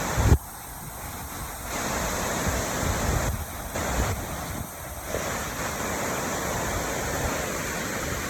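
Steady rushing hiss of a waterfall's falling water. It drops out briefly a few times. A short, heavy low thump hits the microphone right at the start.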